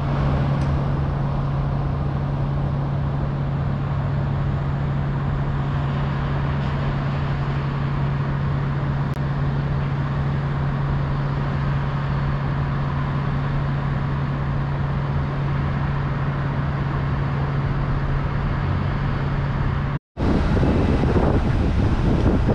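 City street ambience: a steady low hum over constant traffic-like noise. About 20 seconds in it cuts off for a moment and changes to louder, rumbling street noise.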